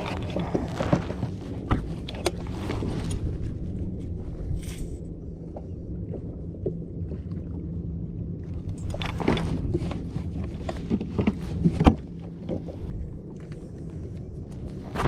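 Knocks, clicks and rattles of gear handled aboard a fishing kayak, in a cluster near the start and again in a busier run that ends with the loudest knock about twelve seconds in. Under them runs a steady low hum that fades out at about that point.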